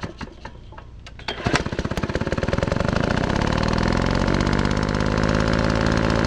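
An engine firing unevenly and weakly, then catching about a second in and running up to a steady, fast beat.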